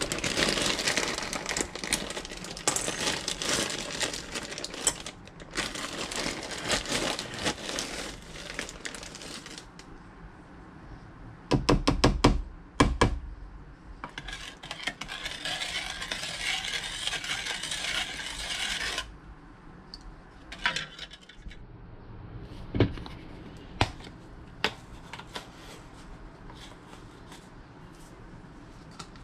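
A plastic zip-top bag crinkling and rustling for about the first ten seconds, then a few sharp knocks. A second stretch of rustling and scraping follows while brown sugar is measured into a bowl of marinade with a plastic measuring cup. Scattered light taps of a plastic measuring spoon and a spice jar come near the end.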